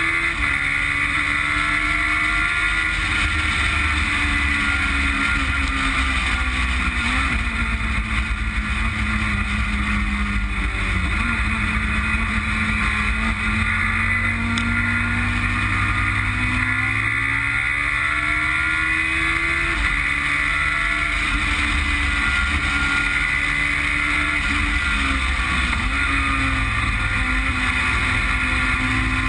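Westfield Megabusa's Suzuki Hayabusa motorcycle engine driving hard around a race circuit, heard onboard. Its pitch sinks and climbs with the corners and straights, with a few sudden drops at upshifts.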